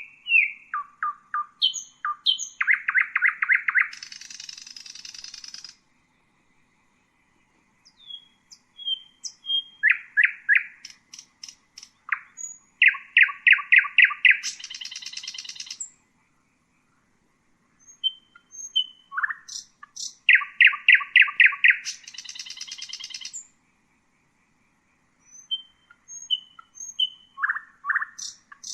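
Common nightingale singing in separate phrases with pauses of about two seconds between them. Each phrase starts with a few clear whistled notes, speeds into a fast run of loud repeated notes, and ends in a high, buzzy rattle.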